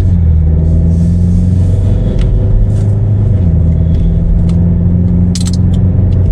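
Car engine and road noise heard from inside the cabin while driving along a street, a steady low hum whose engine note shifts as the car changes speed. A brief clicking rattle about five seconds in.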